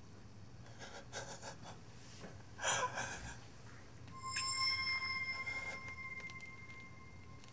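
A short hissing burst about two and a half seconds in, then a bell-like ringing tone that starts about four seconds in and fades slowly over some three seconds.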